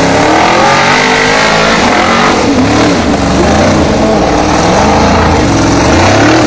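A formula offroad car's 572 cubic-inch Chevy big-block V8, fed with nitrous, revving hard up and down, its pitch rising and falling again and again, as the car climbs a steep dirt slope.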